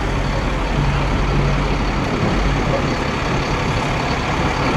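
A motor vehicle's engine running close by, a steady idling rumble under a wash of noise; the low hum drops away about two seconds in.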